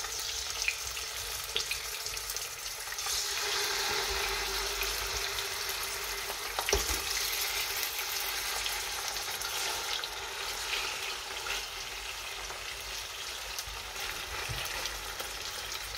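Rabbit pieces sizzling in very hot olive oil as they are laid into the pot one by one, the sizzle growing louder about three seconds in as more meat goes in, with a light knock near the middle. The sizzle is the sign that the oil is hot enough to sear the meat.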